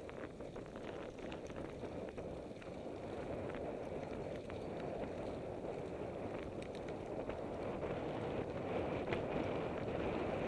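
Mountain bike rolling downhill on a rough forest road: wind buffeting the bike-mounted microphone over tyre rumble on gravel, with scattered clicks and rattles from stones and the bike. It grows gradually louder as speed builds.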